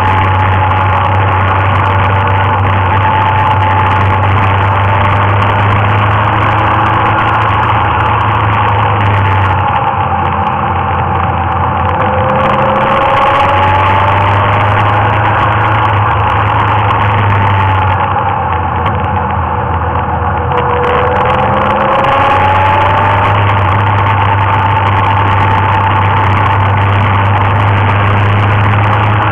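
Motorcycle engine running steadily on the road, its pitch slowly rising and falling with speed. The deep low hum drops away twice, about ten seconds in and again near eighteen seconds, for a few seconds each time.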